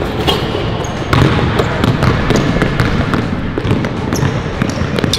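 Basketballs bouncing on a hard court: many uneven thuds, some overlapping, with a few short high squeaks.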